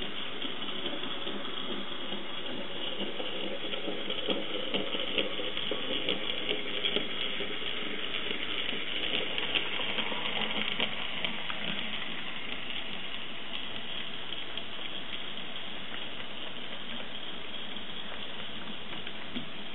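N scale model train running along the track, its passenger cars' wheels clicking and rattling, busiest for several seconds in the middle, over a steady hiss.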